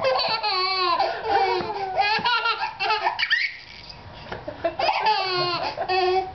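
Baby laughing in two bouts: a run of rapid, high-pitched laughs for about three seconds, a short pause, then another burst of laughter near the end.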